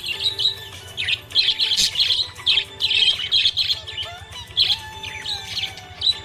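Budgerigar chirping: a quick series of short chirps, broken by a couple of brief pauses.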